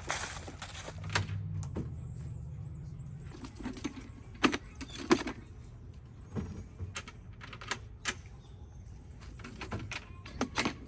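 Light metallic clicking and rattling, with two sharper knocks about four and a half and five seconds in.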